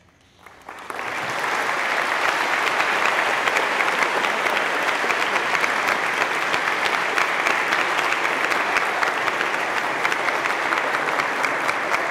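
Audience applauding at the end of a choral piece. The clapping breaks out about half a second in, builds within a couple of seconds, and then holds steady and dense.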